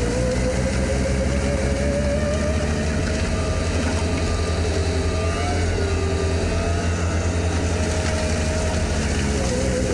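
Bobcat S76 skid steer's diesel engine running steadily, with a whine that climbs slowly in pitch over several seconds and drops back near the end.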